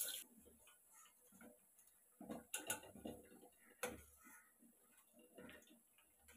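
Faint clinks of a wire spider skimmer against a stainless-steel kadai while frying bread slices are turned in the oil. There are a few sharp ticks: one at the start, a couple about two and a half seconds in, and one near four seconds.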